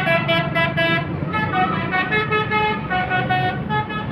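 Multi-tone 'telolet' bus horn playing a tune: about a second of quick repeated toots, then longer notes stepping up and down in pitch.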